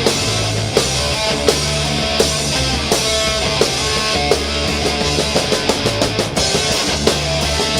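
Heavy rock music: electric guitar and bass over a drum kit keeping a steady beat, with a quick drum fill about two-thirds of the way through.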